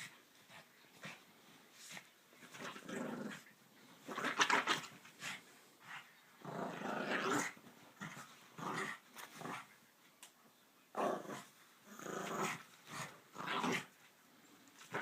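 Dog growling in repeated rough bursts while it bites and tugs at a person's trousers.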